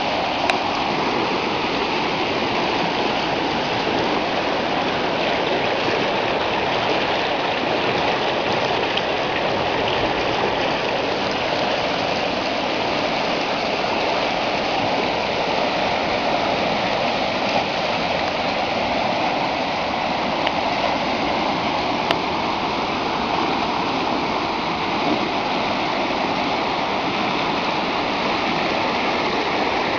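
Swollen floodwater rushing in a steady, continuous stream.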